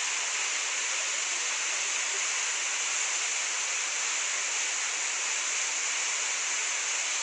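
Urakkuzhi waterfall plunging into a deep rock gorge: a steady rushing hiss of falling water, with no low rumble.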